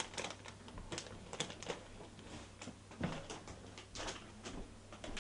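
Plastic chip bag crinkling and rustling as it is handled, a quick, irregular run of crackles and clicks, over a faint steady low hum.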